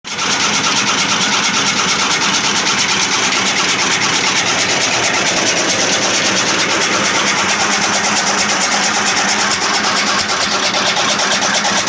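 Gear-type chaff cutter (toka) running empty, its flywheel turned by a belt from a small motor: a steady, rapid mechanical rattle and whir of the gears and cutter.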